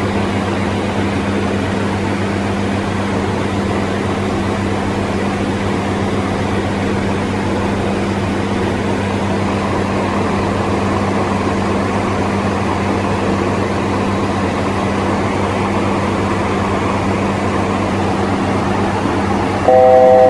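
Steady cockpit noise of a Hawker 900XP business jet in cruise: an even rush of airflow and engines with a low steady hum. Near the end a loud electronic tone sounds for about a second and cuts off.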